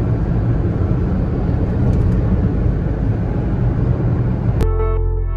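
Steady low rumble of road and engine noise inside a Honda car cruising on a highway. About four and a half seconds in it cuts off abruptly, giving way to ambient background music with held notes.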